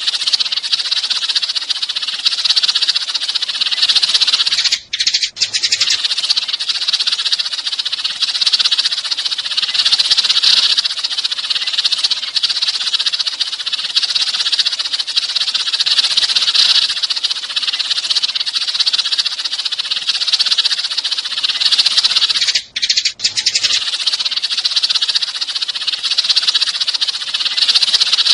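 A flock of sparrows chirping in a dense, unbroken chatter. It cuts out briefly twice, about five seconds in and again near twenty-three seconds.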